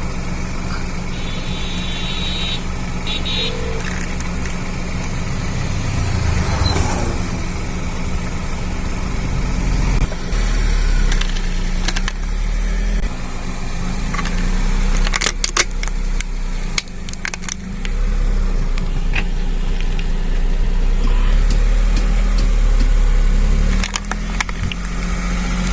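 Car engine running steadily, with a cluster of short sharp cracks about fifteen seconds in.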